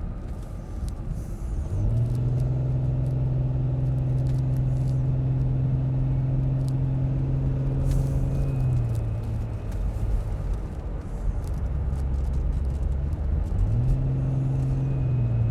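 Car engine and tyre rumble heard from inside the cabin while driving; a steady engine drone sets in about two seconds in, eases off around nine seconds, and picks up again near the end.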